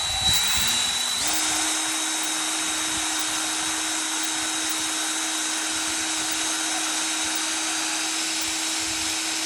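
Small electric grinder with a grinding stone running steadily, grinding a point on a hardened-steel gib screw. Its hum steps up in pitch about a second in, and it shuts off at the end.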